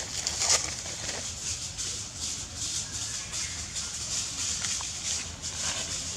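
Outdoor rustling and crackling, with a louder rustle about half a second in, over a low rumble.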